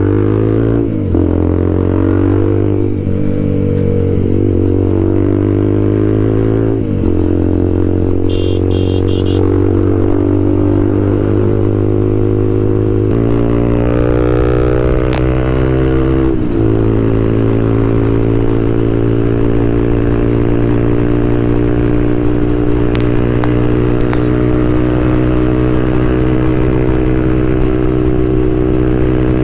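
TVS Apache RTR 200 4V's single-cylinder engine running through an aftermarket full-system exhaust while the bike is ridden, with a very loud exhaust note. The pitch rises and drops several times in the first seven seconds, then holds nearly steady at a cruise, with small shifts about thirteen and sixteen seconds in.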